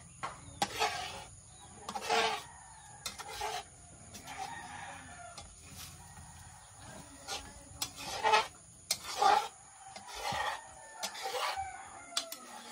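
Chickens clucking and a rooster crowing in a series of short calls, over the scrape of a metal ladle stirring eggs in a wok.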